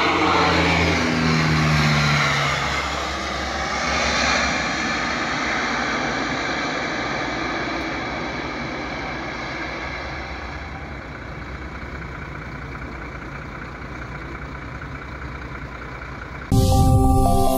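Twin turboprop engines of a Canadair amphibious water bomber flying low past, the engine note falling in pitch as it passes and then slowly fading as it flies off. Music cuts in abruptly near the end, louder than the aircraft.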